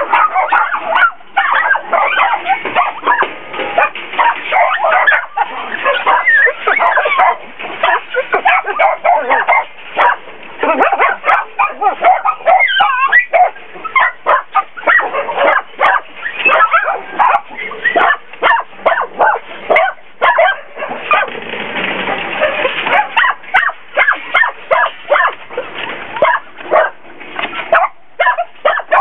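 Many caged dogs barking at once, an overlapping chorus of barks and yips that never lets up. The barking crowds together most thickly about three quarters of the way through.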